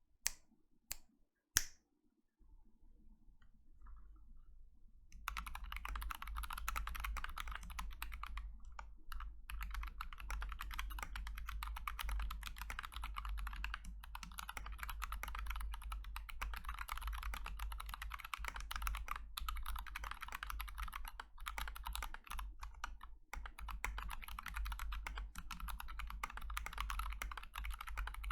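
Typing on a Glorious GMMK TKL mechanical keyboard with Kailh Box Royal tactile switches, PBT Cherry-profile keycaps, a neoprene foam mod and a band-aid mod. A few single keystrokes come first, then fast continuous typing from about five seconds in, over a low steady hum.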